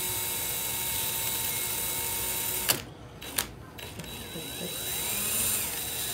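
DeWalt cordless drill running steadily, spinning a potato on its bit against a hand-held peeler that scrapes the skin off. A little under three seconds in it stops with a click, there is a second click, and about a second later it starts again and runs on.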